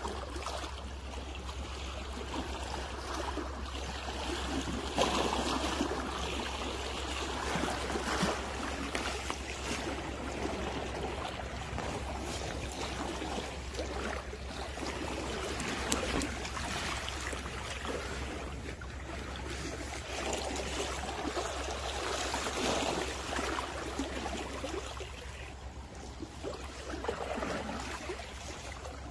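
Small waves lapping and splashing against the shoreline rocks, coming and going unevenly over a steady low hum.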